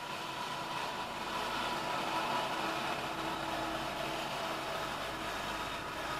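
Steady rumble and rail noise of an approaching Norfolk Southern freight train. It grows louder over the first couple of seconds and then holds, heard from inside a parked car.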